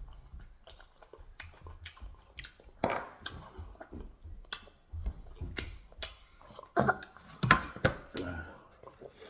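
Chewing and eating sounds of people at a meal of eba with ogbono soup, with scattered short clicks, busier and louder about seven to eight and a half seconds in.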